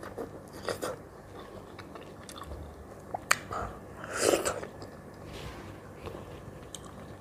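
Close-up mouth sounds of eating ripe mango: biting and sucking the soft flesh off the skin, with wet smacks, chewing and small clicks. The loudest wet smack comes just after four seconds in.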